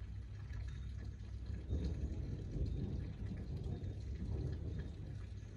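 Distant thunder rumbling low and unevenly, swelling about two seconds in, over a faint hiss of light rain.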